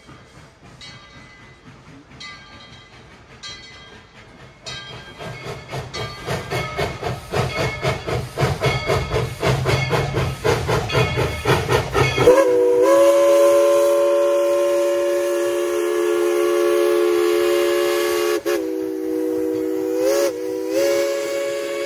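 Narrow-gauge steam locomotive No. 190's exhaust chuffing, the beats growing louder and quicker. About twelve seconds in, its steam whistle sounds one long blast of several notes at once, which sags briefly in pitch twice near the end.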